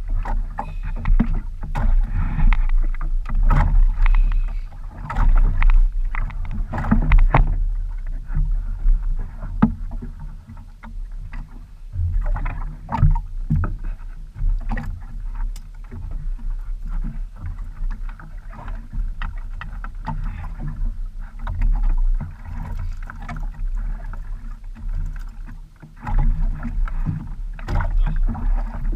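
Small wooden outrigger canoe at sea: a steady low rumble of water and wind against the hull, with scattered knocks and clicks as the fisherman handles his line and jig on the boat.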